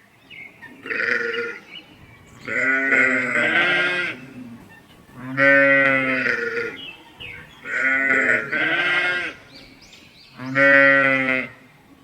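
Bleating livestock: about five wavering calls, each a second or so long, with short pauses between them. The second call is the longest.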